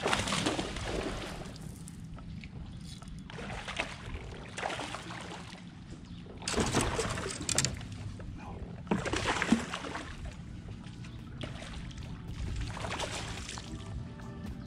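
Water sloshing and splashing against a kayak hull in surges every two to three seconds, over a steady low hum.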